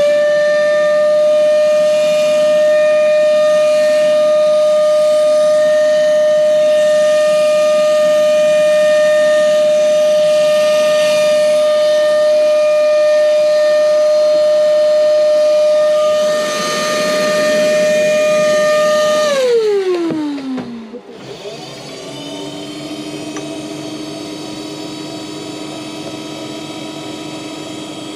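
A workshop power tool's electric motor running with a steady high whine. About 19 seconds in it is switched off and winds down, its pitch falling over about two seconds. Then a second, quieter machine runs steadily on a lower tone.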